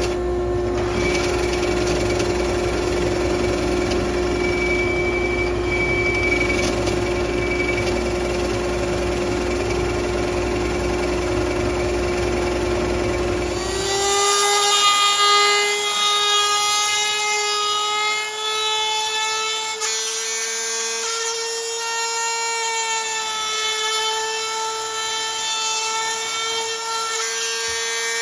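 Drill press running, boring holes in a wooden board with a Forstner bit. About 14 seconds in it gives way to a trim router's high whine, its pitch creeping slowly upward as it runs around the edges of the drilled holes.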